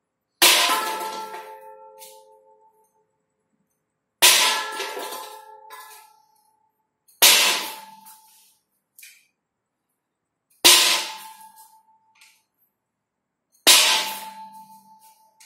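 A hard object strikes with a sharp clang five times, about three to four seconds apart, each strike ringing out with a bell-like tone that fades over a second or two.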